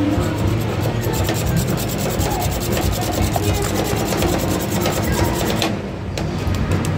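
Metal spatulas scraping against a frozen rolled-ice-cream pan in a fast, regular run of rasping strokes that stops abruptly near the end.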